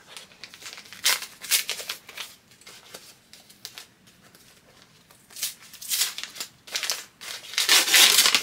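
Paper wrapping on a book rustling and crinkling as it is handled and torn open: short bursts at first, then loud, continuous crinkling near the end.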